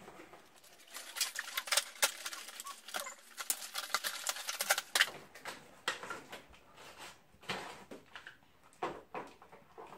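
Toy packaging being torn and pulled open, cardboard and plastic crackling and rustling. A dense run of crackles and clicks comes from about a second in to about five seconds in, then sparser clicks and rustles.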